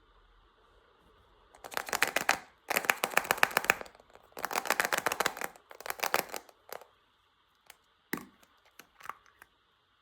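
Packaging being handled and opened, crackling in four bursts of rapid clicks, then a few separate clicks and taps.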